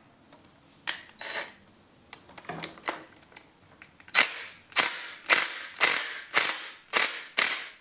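Cordless power driver worked against a bolt in short trigger bursts: a few soft clicks and knocks, then seven quick bursts about half a second apart in the second half, as the bolts of the tractor's fuel filter bracket are being undone.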